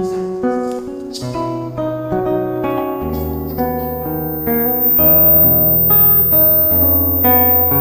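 Instrumental intro of a slow ballad backing track, led by acoustic guitar, with a bass line coming in about three seconds in.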